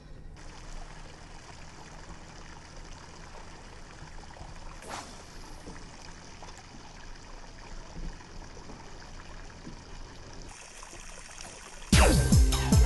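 Gentle lake water lapping and trickling, a steady low wash, with one brief faint swish about five seconds in. Loud electronic music starts suddenly near the end.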